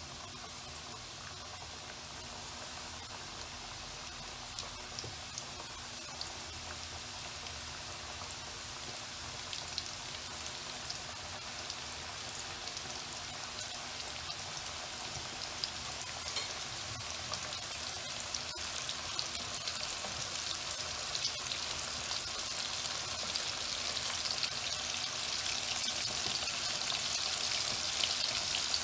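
Breaded chicken strips deep-frying in hot oil: a steady bubbling sizzle with scattered crackles, growing louder as more strips are added to the oil.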